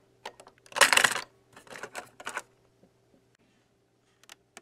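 Plastic clicks and clunks from handling a small RCA portable cassette recorder and working its piano-key buttons: a louder clatter about a second in, then a few lighter clicks, before it falls quiet.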